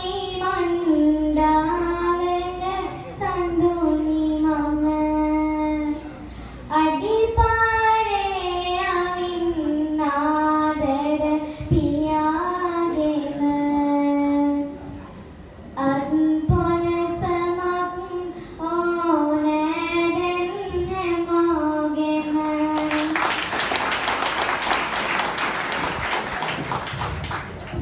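A young girl singing Sinhala verse (kavi) solo into a microphone, a melodic line in long held phrases. Near the end her singing stops and the audience applauds.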